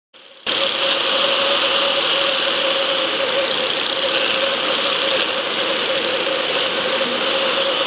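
Underwater sound from a camera towed behind a trolling boat: a steady rush of water with a steady hum from the boat's Mercury outboard motor, starting about half a second in.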